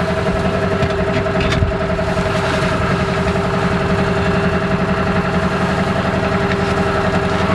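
Vehicle engine running at a steady speed with an even low pulsing, joined by two steady tones.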